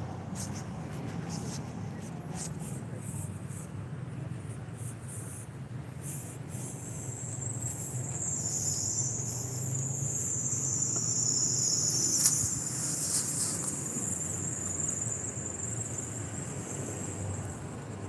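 Insects chirring: a high, continuous chirr that starts about six seconds in and wavers in pitch, over a low rumble of distant road traffic. A single sharp click a little past the middle.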